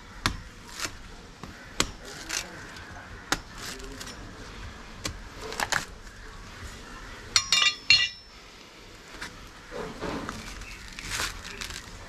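A chopping knife striking a coconut in scattered sharp knocks, with a quick run of ringing metallic clinks a little past the middle.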